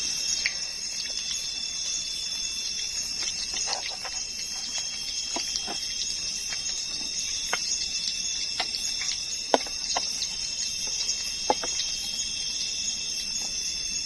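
A chorus of night insects, several steady high-pitched trills held throughout, with scattered sharp pops and crackles from the cooking.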